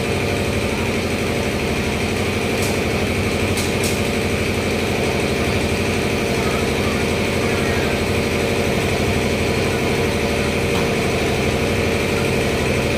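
A machine's motor running steadily with an even hum, with a few light clicks about three to four seconds in.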